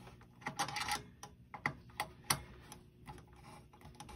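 Screwdriver tightening the mounting screws of an AMD Wraith Stealth CPU cooler on the motherboard: a run of irregular light clicks and ticks of metal on metal.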